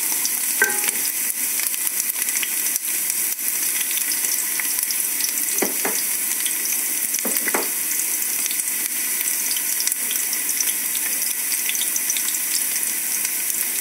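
Chopped onions sizzling in hot oil in a stainless steel pot, a steady hiss, as they are fried toward golden brown.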